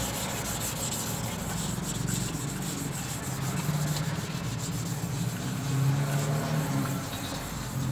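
600-grit wet sandpaper rubbed by hand back and forth over a plastic car headlight lens: a steady swishing rasp as the paper cuts away the hazy, dirty surface layer. A low steady hum runs underneath.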